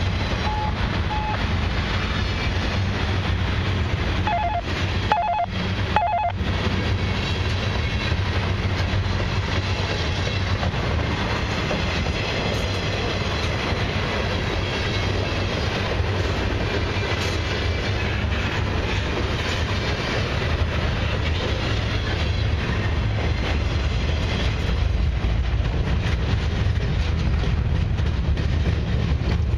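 Canadian Pacific Expressway intermodal train passing close by, its low-deck flatcars loaded with highway trailers: a steady rolling noise of steel wheels on rail that holds without a break.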